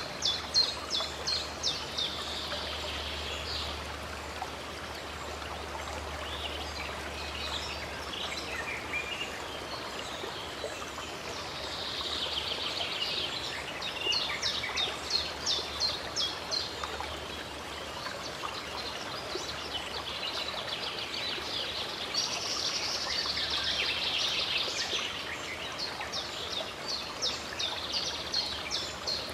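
Songbirds singing in several bursts of rapid, evenly repeated high notes over the steady rush of a flowing stream.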